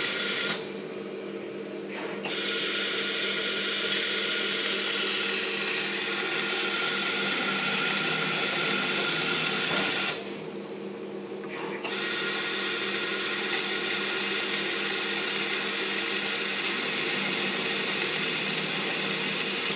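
Automatic vinyl roll lathe slitter running: a steady motor hum under a high hiss as the circular blade cuts into the spinning vinyl roll. The hiss drops away twice for about a second and a half, about a second in and about ten seconds in, while the hum carries on.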